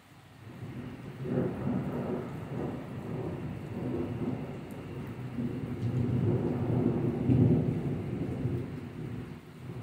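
A long roll of thunder. It builds from about half a second in, rumbles on in uneven waves, is loudest well into the roll, and eases off near the end.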